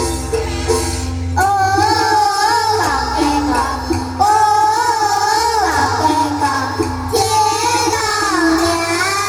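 Children singing a Hakka song in unison over instrumental accompaniment. Three sung phrases come in, each ending on a long held note with vibrato.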